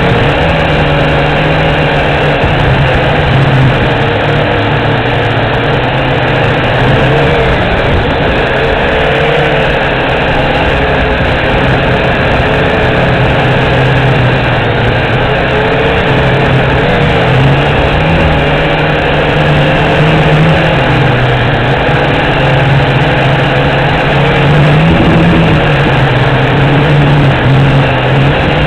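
JXD 509G quadcopter's motors and propellers whirring steadily in flight, the pitch wavering a little as the throttle changes.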